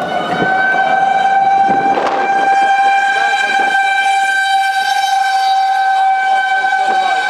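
Outdoor tornado warning siren sounding one steady, held tone. It settles onto its pitch just after the start, with a short noisy burst about two seconds in.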